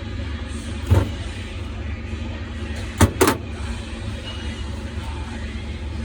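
Steady low hum with three sharp taps of small hand tools or metal parts on the bench, one about a second in and two close together near the middle, as a car lock cylinder is worked on by hand.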